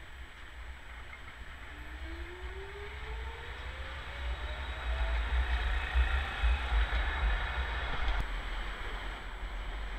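Orange articulated tram pulling away: its traction motor whine rises steadily in pitch as it accelerates, over the rolling noise of wheels on rail and a low rumble that peaks a little past the middle.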